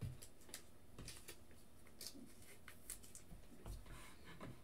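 Faint, scattered clicks and rustles of trading cards being handled and slid across a tabletop.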